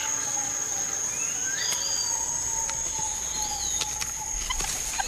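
Rainforest ambience: a steady high insect drone with several whistled bird calls that slide up and down in pitch.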